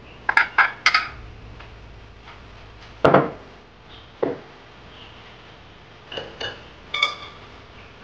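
Tableware clinking: ceramic bowls and dishes struck lightly. There are three quick ringing clinks near the start, two dull knocks of dishes on the wooden table in the middle, and a few more ringing clinks near the end.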